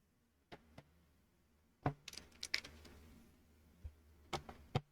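Small plastic Lego pieces being handled, giving a scatter of sharp clicks and light rattles, the loudest about two seconds in.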